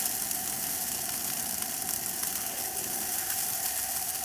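A steady mechanical hum and hiss with one constant mid-pitched tone.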